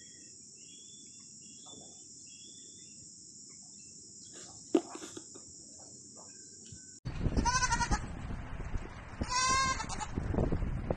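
Baby goat bleating twice, two high, wavering calls about two seconds apart, over a rough rushing noise that starts abruptly just before them. Before that, a faint steady high hiss with a few light chirps and a single click.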